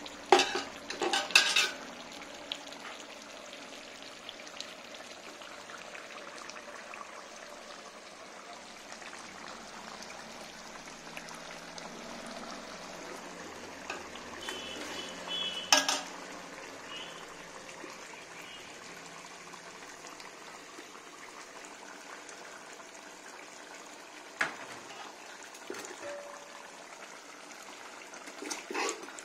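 Steel ladle stirring and scraping meat in gravy in a large aluminium pot, over a steady sizzle from the hot pot. The ladle clatters against the pot in the first two seconds, knocks sharply once about halfway through, and a few more times later.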